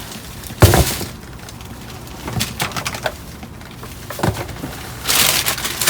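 Rummaging through discarded boxes and packages in a dumpster: a sharp knock about half a second in, scattered smaller clicks and knocks, and a burst of rustling near the end.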